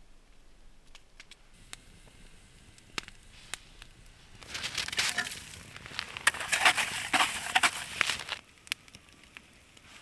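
Scattered sharp pops and crackles, typical of a campfire, with a loud burst of dense crunching and crackling about four seconds in that lasts about four seconds.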